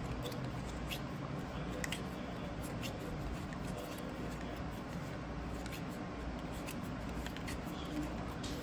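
Topps baseball cards being thumbed one by one off a hand-held stack: scattered light clicks and slides of card stock, in small clusters, over a steady low background hum.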